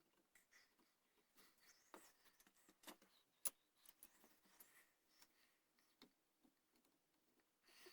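Faint scraping and cutting strokes of a carving tool in a wooden gunstock, with a single sharp click about three and a half seconds in.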